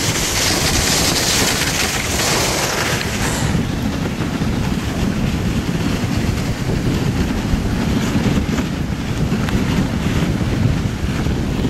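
Wind buffeting the microphone on a moving dog sled, a steady noisy rush with a heavy low rumble; a bright high hiss in it drops away about three and a half seconds in.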